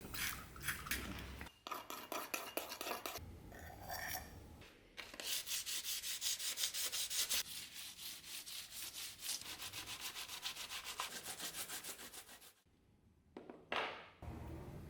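Rapid back-and-forth hand scrubbing on the steel of a rusty pchak knife blade, several strokes a second, to clean off surface rust. The strokes pause briefly near the end, then start again.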